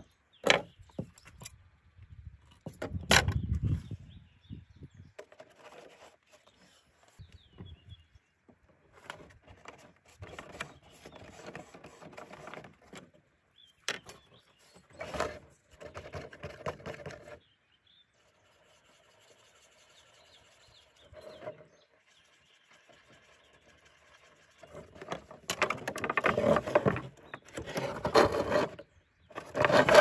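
Thin plastic bottle crinkling and rubbing as it is handled, in separate bursts that are loudest near the end, with a sharp knock on the wooden table about three seconds in.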